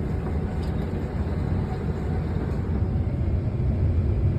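Excavator's diesel engine running steadily, a low rumble.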